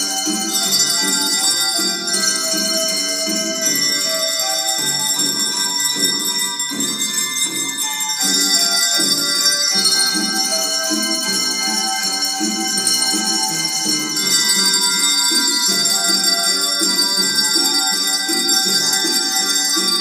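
Bell choir ringing handbells and chimes in a tune, many bright ringing notes overlapping and sustaining, with a busy lower part moving underneath.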